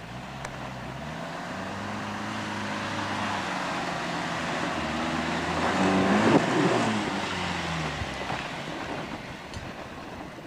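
Engine of a lifted four-wheel-drive pickup truck pulling up a steep dirt slope, its pitch climbing as it works, loudest as it passes close by about six seconds in, then dropping away about two seconds later.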